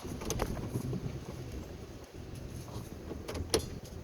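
Ford F-150 5.0-litre engine running low and steady under load, pulling an uprooted tree on a tow strap. Scattered sharp cracks and snaps, bunched in the first second and again near the end, as the wood and roots start to give.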